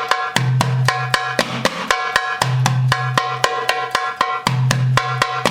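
Arabic tabla (darbuka) played by hand in a practice drill: a deep doom stroke on the drumhead's centre about every two seconds, with quick, sharp tek and ka strokes on the rim filling the gaps at about five a second.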